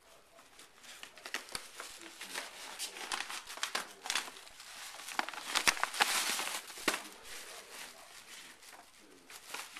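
Scottish Terrier ripping and crumpling tissue paper out of a foil gift bag: a busy run of crinkling, tearing rustles, loudest around the middle and easing off near the end.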